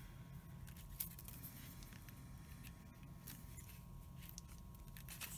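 Faint handling of card stock: light rustles and taps as paper pieces are slid and set down on a card base, with one slightly sharper tap about a second in, over a steady faint hum.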